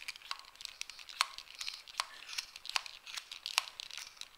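Plastic clicks and rustling as a Nerf Secret Strike AS-1, a tiny single-shot pump-action dart blaster, is pumped and handled: a run of sharp, irregular clicks over a faint scratchy rustle.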